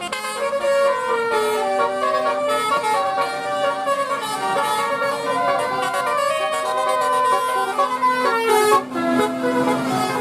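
Bus 'telolet' musical horn (Basuri type) playing a fast tune of short notes stepping up and down in pitch, with a steady low hum underneath.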